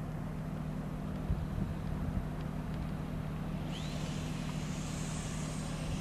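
A steady low hum over a low rumble, with a high hiss joining about four seconds in.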